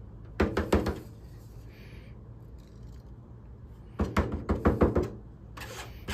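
A small metal spatula scraping and knocking against a screen-printing frame's mesh as leftover ink is gathered back up. It comes in short clusters of strokes, four quick ones about half a second in and a longer run around four to five seconds in.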